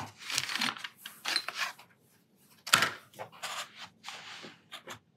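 Watercolour paint pots and palette being handled, clinking and rattling in a run of short clatters, with one sharp clink a little under three seconds in.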